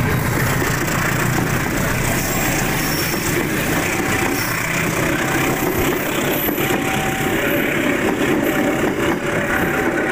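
Diesel-hauled economy-class passenger train rolling past at close range: steady wheel-on-rail noise from the coaches. A short tone repeats about once a second over it.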